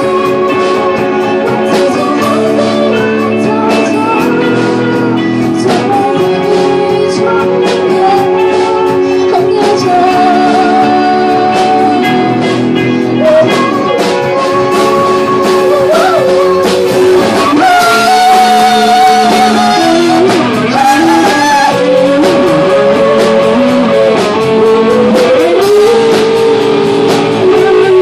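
Live rock band performing: a woman singing long, sliding notes over electric guitars and drums.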